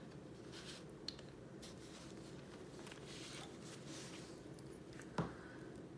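Faint rustling and sliding of a sheet of paper as a backing sheet is slipped in behind a colouring-book page, with one short knock about five seconds in.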